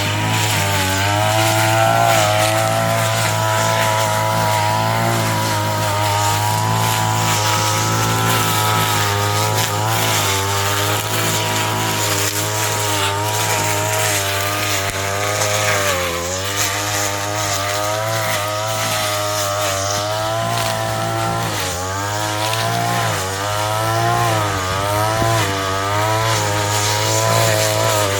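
Small engine of a grass-cutting machine running at high speed, its pitch sagging and recovering now and then, most markedly about halfway through and several times near the end.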